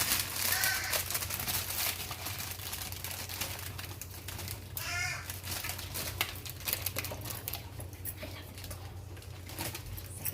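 Steady rustling and clicking, with two short bird-like calls, one near the start and one about five seconds in.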